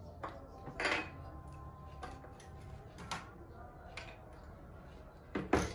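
Irregular metallic clicks and clinks from handling and fitting an industrial sewing machine head on its table: about six sharp knocks, with the loudest near the end.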